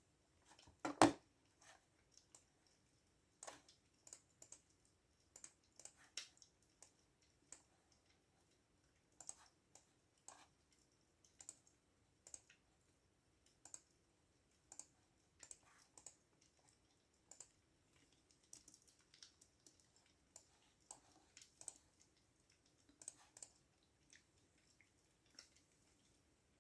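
Computer keyboard typing slowly and unevenly: single keystrokes and short runs of clicks with pauses between. There is one louder knock about a second in.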